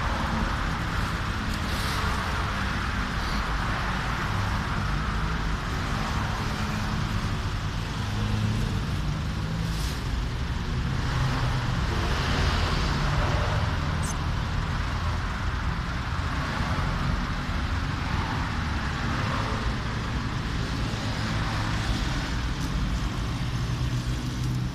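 Steady road traffic on a city street, cars running by with a constant low rumble. Dry fallen leaves rustle and crunch now and then as a dog sniffs and steps through them.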